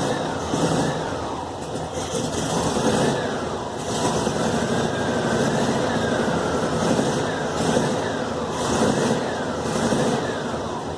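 Volkswagen Fusca's air-cooled flat-four engine running steadily at idle. The exhaust-like roar it had is gone now that the loose cylinder head bolts have been retightened to factory torque.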